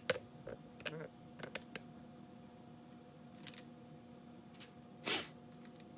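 A few light, sharp clicks, several in the first second and a half and another a couple of seconds later, over a faint steady hum. A short hiss comes about five seconds in.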